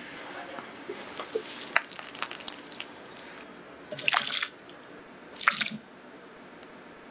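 Light drips and small ticks of water, then two short splashes as blanched chicken feet are tipped from a slotted skimmer into a glass bowl of ice water.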